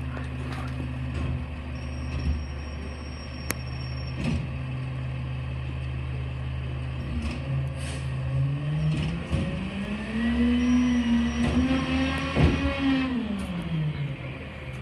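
Garbage truck's diesel engine running at a steady idle, then revving up about eight seconds in, holding high for a few seconds and winding back down near the end, with a few sharp clanks along the way.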